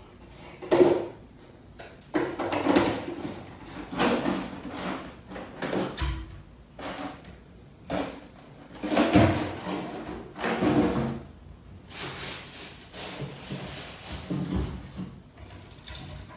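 Irregular knocks, rattles and scraping as the parts of a ring light and its stand are handled and fitted together.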